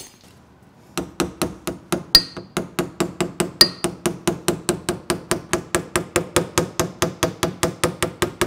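Hammer tapping the steel flange of a new door skin for a 1985 Chevrolet K10 in a quick, even run of light blows, about five a second, folding (hemming) the edge over the door shell. The taps start about a second in, and two harder blows ring out among the first few.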